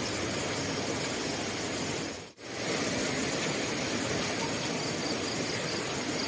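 Steady rushing of river water, an even noise that cuts out for a split second about two seconds in and then carries on.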